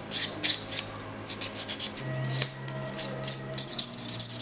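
Nail buffer rubbing back and forth in quick short strokes over hardened dip powder on a plastic practice nail, polishing it smooth. The strokes ease off for about a second near the middle, then pick up again.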